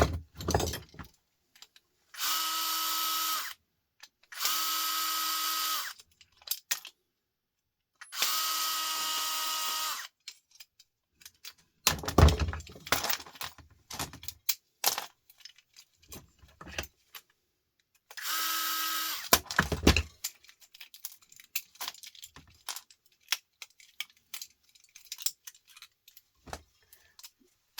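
Cordless drill/driver running in four short steady bursts, working the screws of a plastic plug adapter. Between the bursts come clicks, rattles and a few sharp knocks of parts being handled, the loudest about twelve and twenty seconds in.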